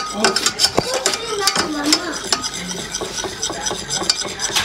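A metal wire whisk beating a thick, creamy mixture in a stainless steel pot, the wires scraping and clicking irregularly against the pot's sides and bottom.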